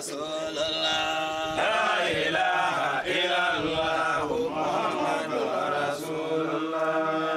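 Men's voices chanting together in long held notes: a collective Islamic prayer chant in the Malian Sufi style.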